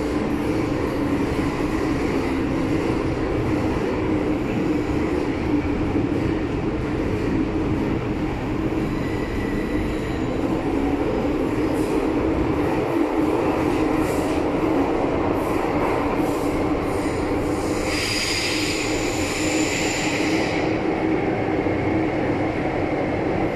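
MTR Island Line M-Train metro car running at speed, heard from inside the carriage: a steady rumble and hum. About eighteen seconds in, a high-pitched wheel squeal rises over it for a couple of seconds, then fades.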